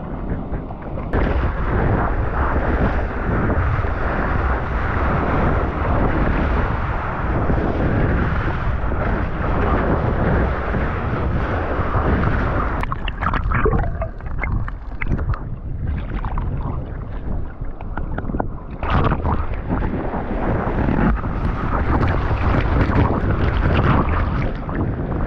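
Loud wind buffeting on an action-camera microphone mixed with the rush of surf water, rising sharply about a second in. Around the middle it turns choppier, with splashes, before rising again.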